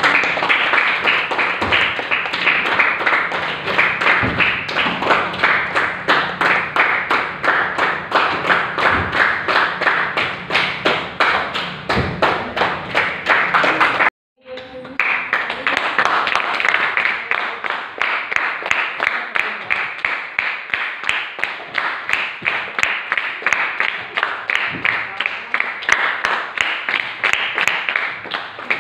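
A group clapping steadily and fast, many sharp claps close together without a break. It cuts off briefly about halfway through, then goes on.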